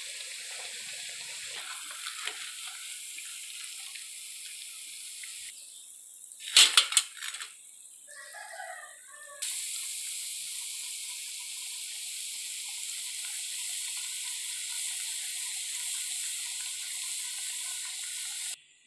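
Rice-flour chekkalu deep-frying in hot oil in a kadai: a steady sizzle. Near the middle the sizzle drops, a few loud sharp knocks sound, then the sizzle picks up again.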